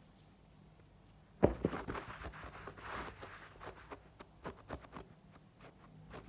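A sharp knock about a second and a half in, then irregular light scratches, taps and rustles of a hand rubbing and tapping on a carpet.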